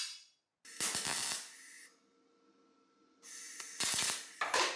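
MIG welder laying two short welds on a small steel part, each a burst of arc hiss lasting about a second, with a faint steady hum from the welder between them.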